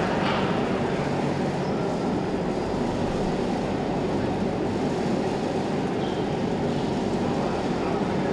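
Steady low hubbub of a large, crowded show hall: an even rumble of crowd noise with no distinct voices or sudden sounds.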